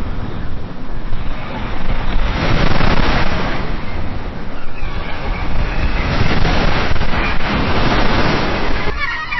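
Ocean surf washing in with wind buffeting the microphone: a loud, even rush that swells and eases over several seconds.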